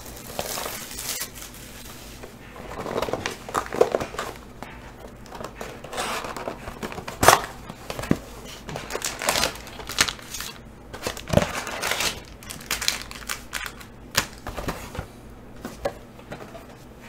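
A cardboard Panini Prizm football card box being handled and opened by hand: irregular rustling and crinkling of its wrapping and cardboard, with a few sharp clicks, the loudest about seven seconds in and others about 11 and 14 seconds in.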